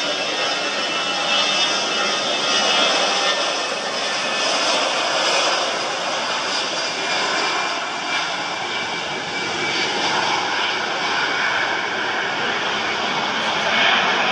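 Jet engines of an easyJet Airbus A320-family airliner running on the airfield: a steady rushing noise with a faint high whine on top.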